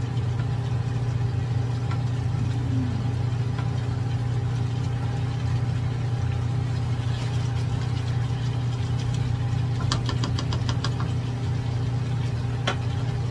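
A steady low mechanical hum, like a motor or appliance running, under a spatula stirring chicken adobo in a nonstick wok, with a quick run of light clicks about ten seconds in and one more click near the end.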